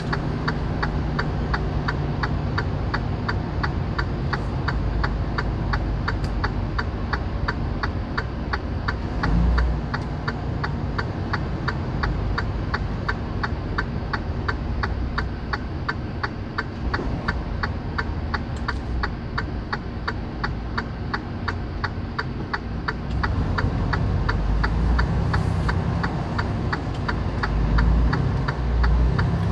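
Semi-truck's diesel engine heard from inside the cab: a steady low rumble, with a fast, even ticking running over it throughout.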